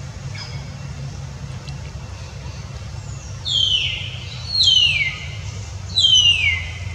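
Baby macaque crying: three loud, high-pitched calls, each falling in pitch over about half a second, starting about three seconds in, over a steady low rumble.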